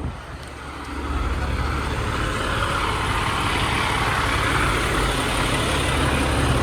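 Heavy fire apparatus's diesel engine running close by, a low steady rumble that comes up about a second in and holds.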